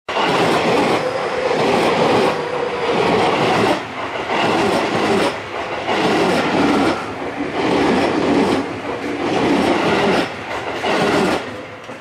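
Seibu 30000 series electric commuter train passing close by, its wheels clattering over rail joints in a loud rhythmic clickety-clack that surges about every second and a half. It dies away near the end as the last car goes by.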